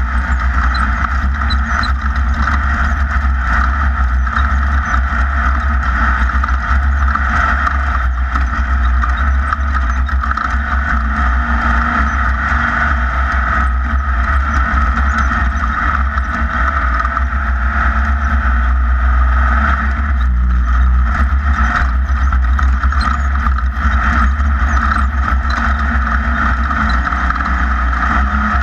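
Class 1600 off-road buggy's air-cooled Volkswagen engine running steadily at speed, heard over heavy low rumble.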